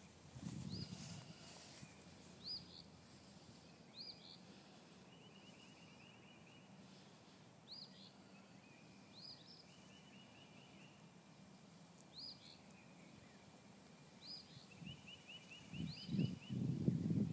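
Birds calling outdoors: a short chirp repeated about every second and a half, with a quick trilled series now and then. A few louder low rustling sounds come near the end.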